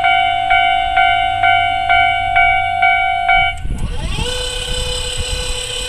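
Japanese railway level-crossing warning bell, the standard electronic type, dinging about twice a second, then stopping about three and a half seconds in. A motor whine then rises and holds at a steady pitch as the crossing barriers are raised.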